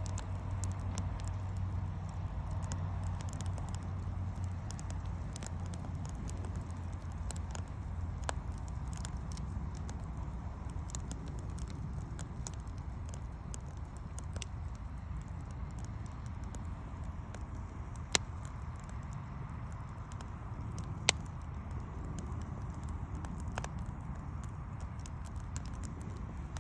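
Wood fire burning: continuous light crackling over a low steady rumble, with two sharper, louder pops in the latter half.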